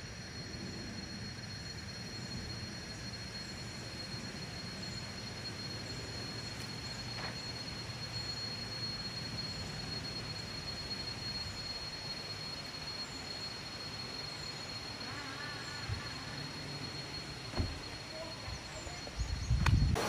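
Tropical forest ambience: insects keep up a steady high-pitched drone over a low rumble, with faint short chirps about once a second. A brief warbling call comes about fifteen seconds in, and a few low thumps near the end are the loudest sounds.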